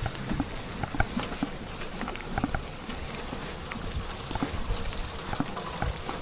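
Footsteps on hard ground, about two steps a second, over a steady background hiss.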